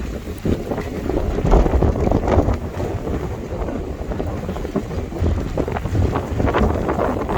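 Wind buffeting the microphone: a rough low rumble that rises and falls in gusts, loudest a second or two in.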